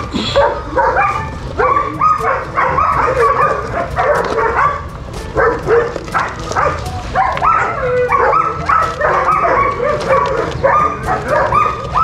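Dogs barking and yapping, short high calls coming several a second without a break.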